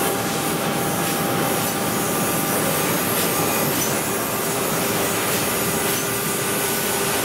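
Hot-rolling rebar mill running: the rolling stands and the glowing steel bar rubbing through the guides and loops make a steady, dense grinding noise with a faint steady hum in it.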